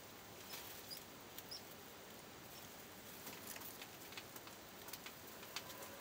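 African pygmy mice moving about in hay bedding: faint, scattered rustles and clicks, with a few brief high squeaks in the first second or two.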